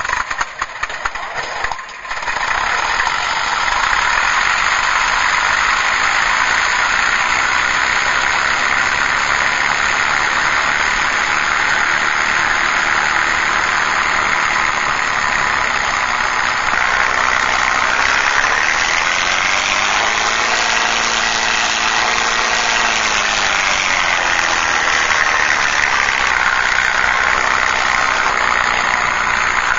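Recorded airplane engine sound played by a MrRCSound V4 RC sound unit. It sputters into life over the first couple of seconds, then runs steadily. About twenty seconds in it revs up, holds, and settles back down.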